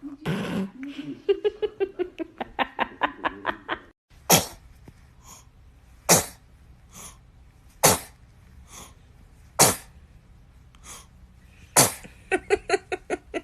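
Baby sneezing five times in a row, short sharp sneezes about two seconds apart, with fainter catches of breath between them. Runs of quick short vocal sounds come before the first sneeze and after the last.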